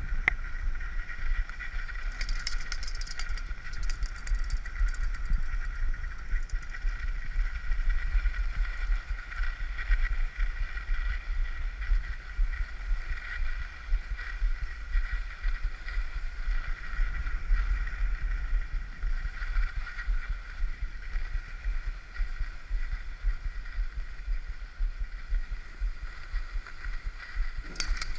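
Skis sliding over groomed corduroy snow while towed up a drag lift: a steady low rumble with a steady higher hum above it, and brief crackling about two seconds in and again near the end.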